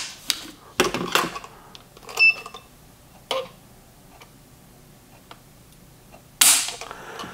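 Light clicks and knocks from handling a rifle and a Lyman digital trigger pull gauge, with a short electronic beep about two seconds in. About six and a half seconds in comes a louder sharp click as the gauge pulls the Geissele trigger through its break and the hammer falls.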